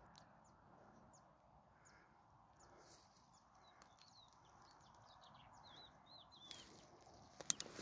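Faint distant birdsong: thin high chirps and short warbling phrases over quiet open-field ambience, with a few sharp clicks near the end.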